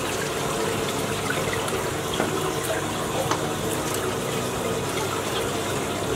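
Steady splashing of churning water in a large aquarium tank, with a drinking glass dipped in and tank water poured into a plastic fish bag a little at a time, to acclimatise the fish to the tank water.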